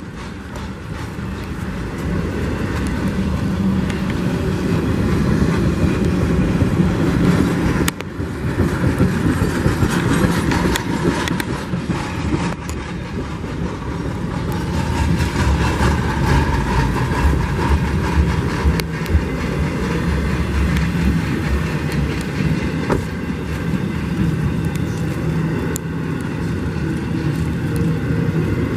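Norfolk Southern intermodal freight cars rolling past at speed: a steady rumble and rattle of steel wheels on rail, with a few sharp clacks.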